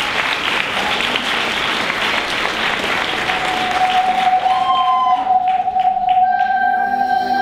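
Audience applauding, with a cheer just at the start. About three seconds in, a held synthesizer note comes in under the clapping, and by the end slow ambient music with several sustained notes has taken over as the applause fades.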